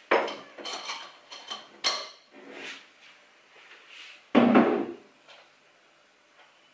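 Kitchen handling sounds: a quick run of light clinks of a teaspoon and a small glass in the first two seconds, then one heavier, louder thud about four and a half seconds in.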